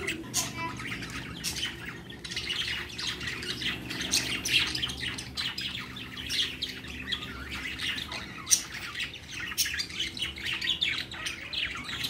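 A flock of caged budgerigars chattering: a dense, continuous stream of short high chirps and squawks.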